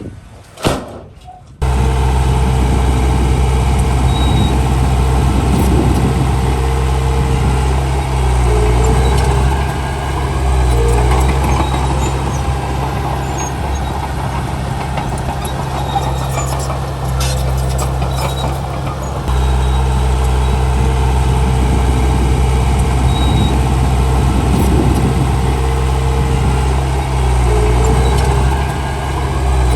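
Heavy diesel earthmoving machinery running steadily, the engine's level rising and falling several times as the load changes. It starts abruptly about a second and a half in, after a brief stretch of wind noise.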